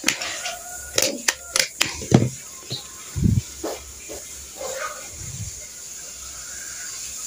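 Sharp clicks of a handheld stapler and crisp crackling of banana leaves as the leaf folds are stapled and handled, clustered in the first two seconds. Two short, dull low sounds follow, about three and five seconds in.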